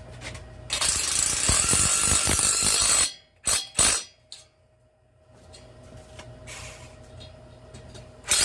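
A power drill runs for about two and a half seconds, then two sharp knocks.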